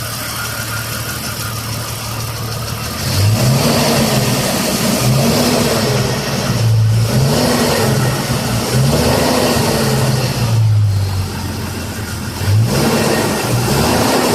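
Jeep Cherokee XJ 4.0-litre straight-six engine idling, then revved in a series of short throttle blips from about three seconds in, the pitch rising and falling each time. The engine is warm and has a tick that the owner puts down to the valves.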